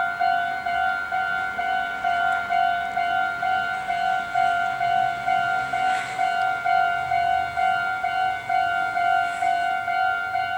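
Japanese level crossing's electronic warning bell ringing, an even two-tone ding repeating about twice a second, signalling that a train is approaching.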